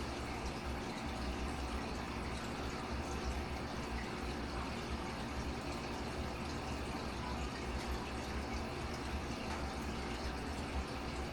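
Steady sound of water running in a fish tank, with a constant low hum underneath.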